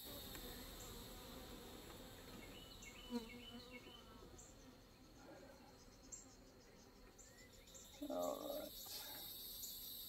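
Faint hum of honeybees around an opened hive, over a steady high trill of crickets. About eight seconds in, a louder buzz passes close, like a bee flying by.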